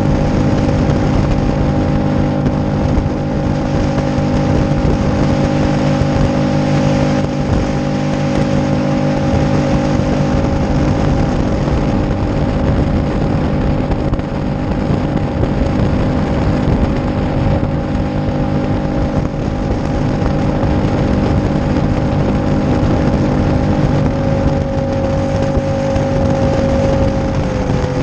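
Mercury 150 Pro XS four-stroke outboard, a four-cylinder, running steadily at cruising speed under a loud rush of wind and water noise. Its note dips slightly near the end.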